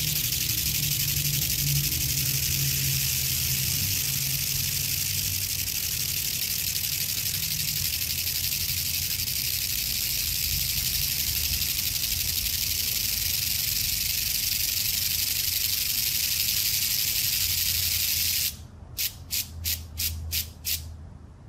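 Annax flipdot display panel scrolling text: many electromagnetically flipped discs make a continuous hissing clatter. Near the end it stops suddenly, and about seven separate sharp clicks follow as the last dots flip over.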